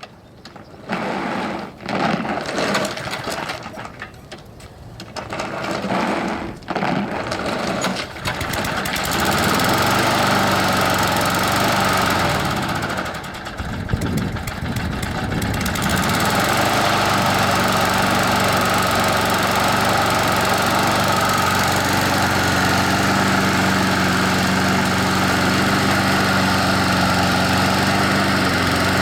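Husqvarna HU725AWD push mower's small engine sputtering and cutting in and out, close to dying, for the first several seconds. It then catches and runs at a steady speed, stumbles once about halfway, and settles into an even run.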